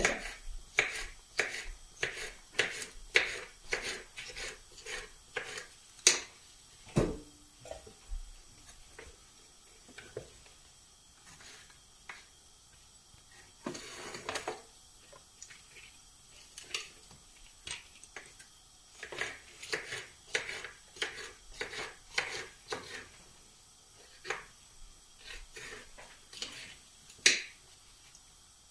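A knife cutting fresh red chili peppers on a wooden cutting board: irregular sharp taps and chops, thick at first, thinning out in the middle, then picking up again.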